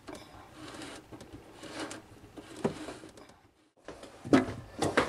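Hand-handling noises from a plastic sink drain pipe and its slip nut being gripped and twisted: faint rubbing and scraping with scattered clicks. The sound briefly cuts out a little past three seconds in, and a couple of sharper knocks follow near the end.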